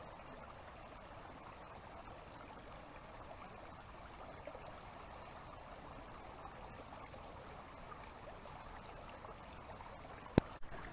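Stream water running steadily. One sharp click near the end.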